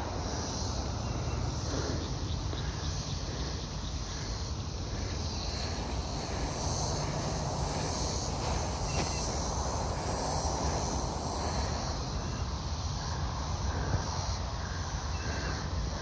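Steady outdoor background of insects buzzing in the woods, over a constant low rumble.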